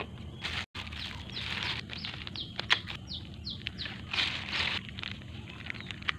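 Thin plastic bags rustling and crinkling in irregular bursts as packets are pulled out and handled, with a bird chirping outdoors, a run of short falling chirps around the middle.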